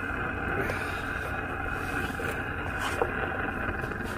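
Wooden spatula stirring and pressing thick fufu dough against a metal pan over a lit gas burner, with a steady rushing hiss under a few short knocks of the spatula on the pan, the clearest about three seconds in.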